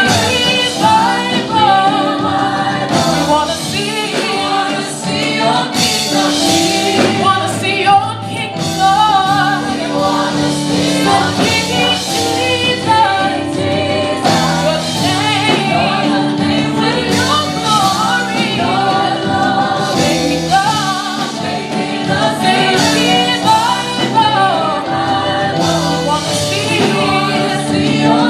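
Gospel music: a choir and lead voices singing over a steady band accompaniment.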